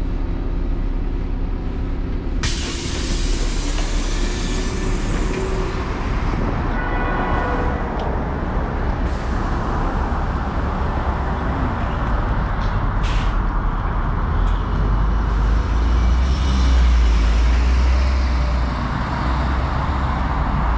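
LiAZ-5292.60 city bus standing at a stop with its engine running, a steady low rumble. About two seconds in, a sudden hiss of air and street noise comes in as the doors open. The low rumble grows louder for a few seconds near the end.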